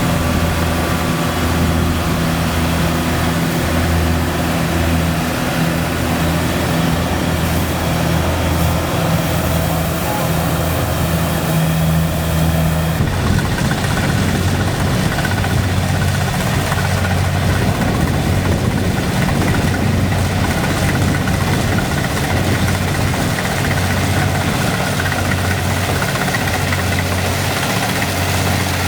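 Kubota DC70 combine harvester's diesel engine running steadily with mechanical clatter. A little under halfway through, the engine note and the higher noise shift.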